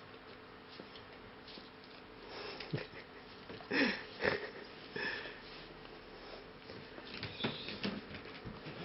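A pit bull-type dog sniffing and snuffling through its nose as it nibbles at a bare human heel, gnawing at the hard skin. The sniffs come as a run of short, sharp bursts starting about two seconds in, the loudest a couple near the middle.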